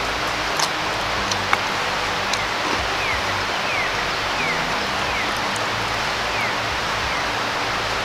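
Steady rushing outdoor noise, even and unbroken, with faint low background music under it. Several short falling chirps sound in the middle, about one every second.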